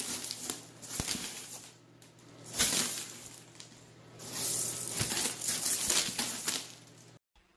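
Dry macaroni rattling and rustling as it is dug through, in three bursts of shifting pasta, the longest in the second half.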